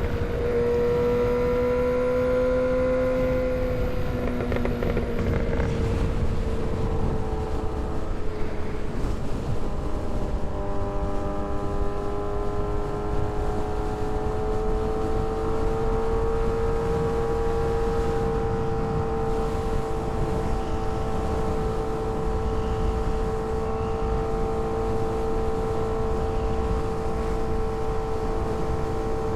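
Kawasaki ZX-6R 636's inline-four engine running at a steady cruise, its pitch easing down about four to six seconds in and then holding nearly level. A dense rushing noise of wind and road runs underneath.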